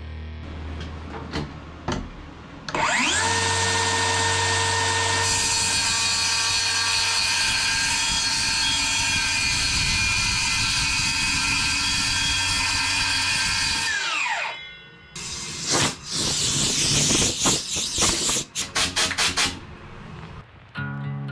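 DeWalt FlexVolt cordless circular saw winding up about three seconds in, cutting steadily through a hardwood board for about eleven seconds, then winding down. A string of short, irregular loud noises follows, and music comes in near the end.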